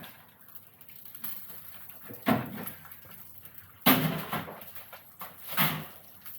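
Three sharp knocks, the loudest about four seconds in, from handling the brisket and gear on a hooded barbecue's grill and upper warming rack.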